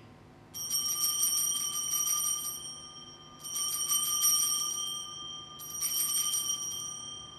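Altar bells (Sanctus bells) rung three times at the elevation of the chalice after the consecration at Mass. Each ring is a quick shaken jingle whose bright tones carry on and fade between rings.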